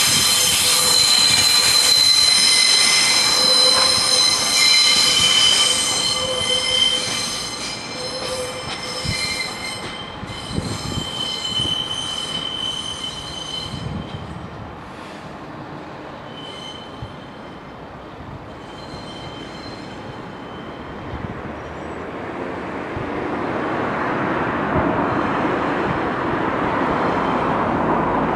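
Wheels of a Class 142 Pacer four-wheel railbus squealing shrilly on the tight curves of the station approach, several whistling tones at once, fading out about halfway through. A broad rushing noise builds towards the end.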